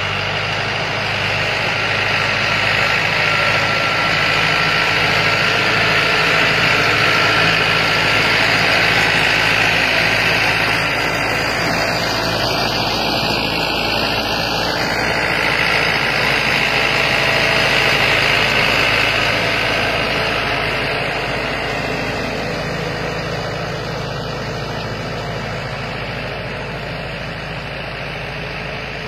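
Massey Ferguson tractor's diesel engine running steadily while hitched to a trolley piled with sacks; it gets slightly quieter over the last several seconds.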